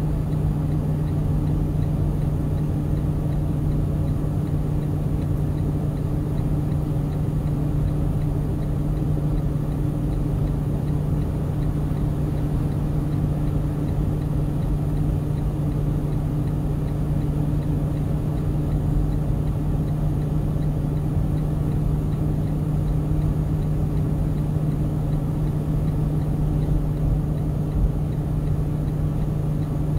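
Vehicle engine and road noise heard from inside the cab while driving at a steady speed on the highway: an even, unchanging low hum over a haze of tyre noise.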